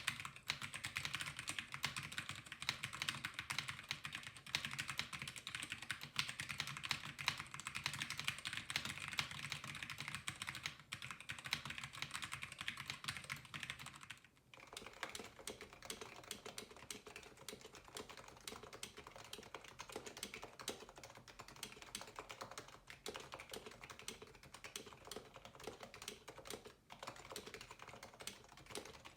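Fast continuous typing on a Keychron K6 keyboard with LK Optical Brown tactile switches, a fairly loud, sharp, high-pitched clatter. About halfway through, after a brief pause, it gives way to quieter, deeper-sounding typing on an HHKB Professional 2 Type-S with Topre switches.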